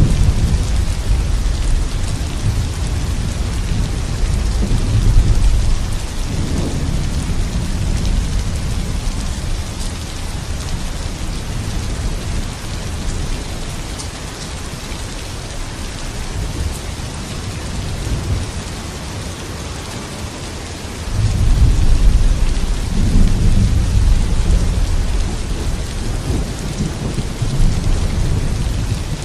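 Steady heavy rain hissing, with rolling thunder rumbling low through the first few seconds and again from about three-quarters of the way through, where it comes in suddenly.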